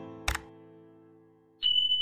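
Soft held keyboard chords with a sharp mouse-click sound effect a quarter second in. About a second and a half in comes a loud, high, steady alert tone, the notification-bell sound effect.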